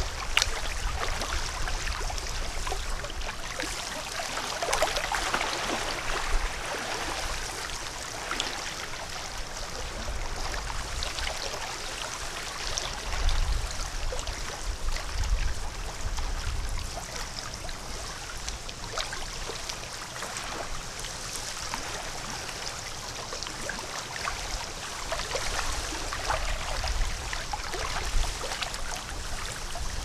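Water trickling and gurgling steadily, with small splashes throughout, over a low rumble that swells and fades.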